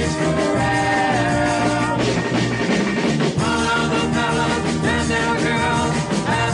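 A song played from a 45 rpm vinyl single: singing over a full band with a steady beat.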